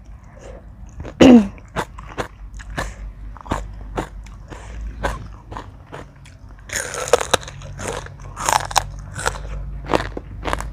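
Close-up eating sounds of spicy seafood papaya salad: wet chewing with frequent quick crunches and clicks. A short hum about a second in and a brief airy hiss about seven seconds in, like sucking in air or slurping.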